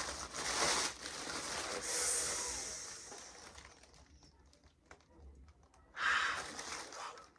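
Gift packaging rustling and crinkling in several bursts as a new handbag is unwrapped, loudest at the start, around two seconds in and again about six seconds in.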